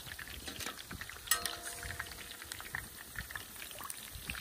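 Pakoras deep-frying in hot oil in a steel karahi: steady bubbling with scattered small crackles. About a second in, a single metal clink rings briefly.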